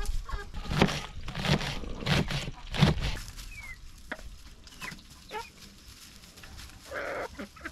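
Backyard hens clucking in a quick run of short calls over the first three seconds as they feed on kitchen scraps, then a few brief, faint high chirps and one more short cluck near the end.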